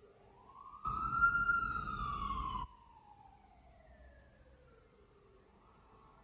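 A faint siren giving one slow wail: its pitch climbs for about a second and a half, then falls away over the next few seconds. A low rumble lies under the first couple of seconds.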